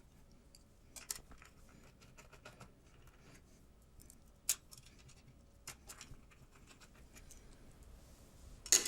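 Sporadic small clicks and scratches of screws being turned by hand into a small metal enclosure, with a louder clatter near the end.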